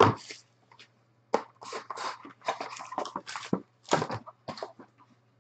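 Trading cards and a cardboard card box handled on a table: a run of short, irregular scrapes, slides and rustles. A low steady hum runs underneath.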